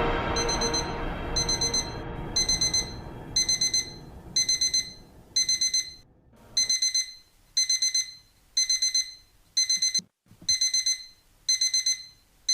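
Electronic alarm beeping in quick groups of several high beeps, about one group a second. It is waking a sleeper from a dream.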